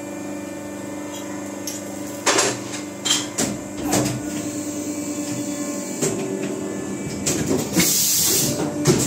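Automatic wire soldering machine running with a steady mechanical hum, with a few sharp clacks of its moving parts in the first half. A short burst of hiss comes near the end.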